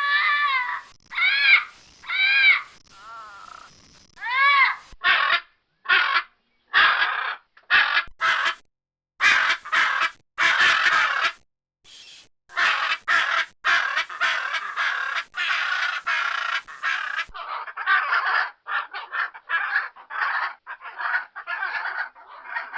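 Parrot calling. It gives a few whistled calls that rise and fall in pitch, then from about five seconds in a string of harsh screeching squawks. From about seventeen seconds in it breaks into a fast run of short chattering squawks.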